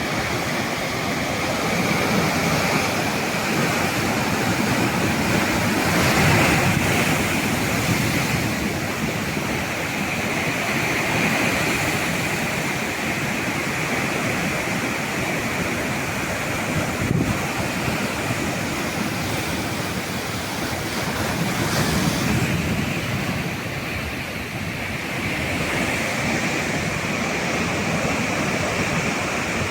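Sea waves breaking and washing on the shore, a continuous surf that swells and eases, louder around six and twenty-two seconds in, with some wind on the microphone.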